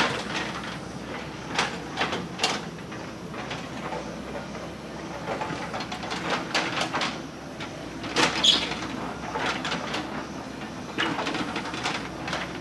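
JCB 3DX backhoe loader's diesel engine running under load while digging, with repeated metal clanks, scrapes and a brief squeal from the bucket and arm linkage.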